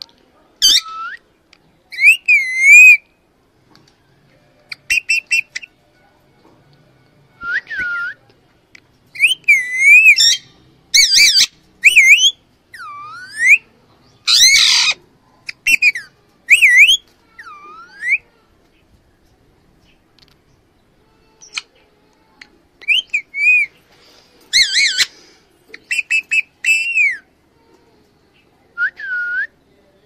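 Female Alexandrine parakeet calling in short whistled notes and squawks, many of them sliding up or down in pitch. The calls come in clusters with pauses, and the harshest squawk falls about halfway through.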